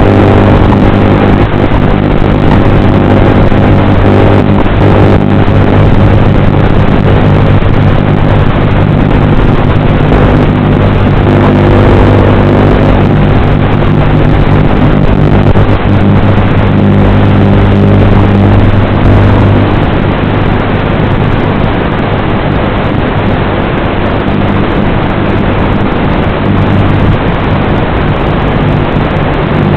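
Small FPV drone's electric motors and propellers running steadily with a buzzing hum, easing slightly about two-thirds of the way through.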